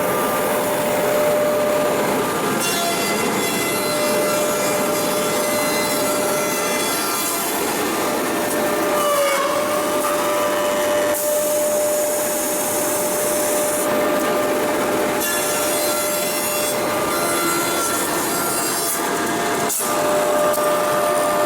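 Beehive-box handle-digging and edge-milling machine running: its motor-driven, belt-driven cutters whine steadily while wooden boards are fed through and cut, with stretches of hissing cutting noise. There is one sharp knock near the end.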